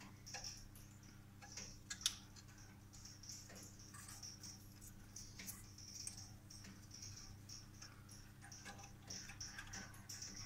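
Faint scattered clicks and ticks over a low steady hum, with one sharper click about two seconds in.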